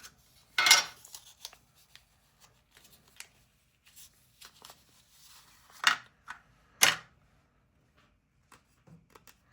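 Zippo lighter and its tag being handled: a sharp click about a second in, then two more about a second apart some six seconds in, among small ticks and faint rustling and peeling as the tag is pulled off.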